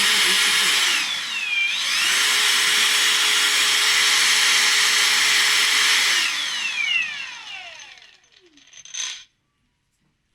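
Cordless brushless angle grinder running free at speed. It dips briefly about a second and a half in and spins back up, then is switched off and winds down with a falling whine. A short knock follows near the end.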